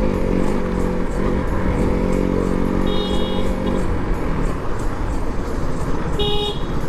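Motorcycle engine running at road speed, shifting pitch early on and then holding steady, under heavy wind rumble on the microphone. Two short high-pitched beeps, about three seconds apart.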